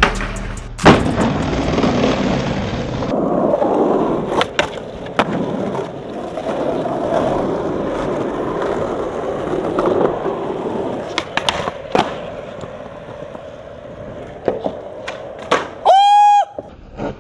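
Raw skateboarding sound: a board sliding down a metal handrail ends in a loud landing about a second in, then urethane wheels roll over concrete and asphalt, broken by several sharp pops and clacks of the board. Near the end comes a short, loud high-pitched tone.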